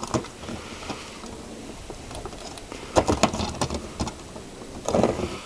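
Handling noises from a smoke alarm being worked on by hand: scattered clicks and scratching, with a quick cluster of clicks about three seconds in and a short rustle near the end. No alarm sounds.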